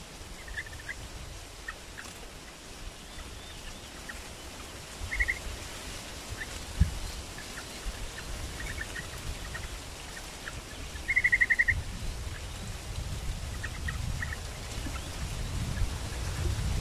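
Caged trao trảo birds calling: scattered short chirps, a quick run of repeated notes about five seconds in and a longer, louder run of rapid repeated notes around eleven seconds in. A single dull thump about seven seconds in, and a low rumble rising near the end.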